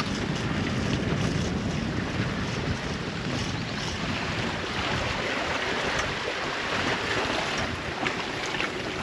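Wind buffeting the microphone over the steady rush and splash of sea water around the stern of a sailboat under way and its towed inflatable dinghy.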